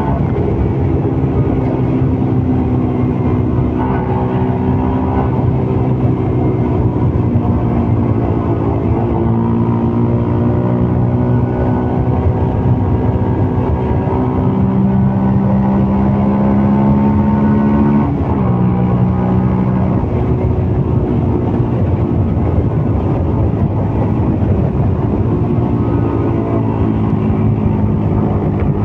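CFMOTO Papio 125's single-cylinder engine pulling the mini-bike along at moderate speed, its note rising and falling with the throttle. The pitch jumps suddenly several times, as with gear changes.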